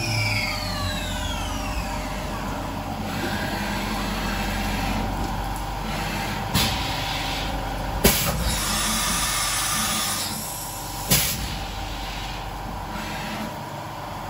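Syil X7 CNC mill's spindle winding down with a falling whine, then the head retracting and an automatic tool change: three sharp clunks with a hiss of air in the middle, and the spindle starting to spin up again near the end.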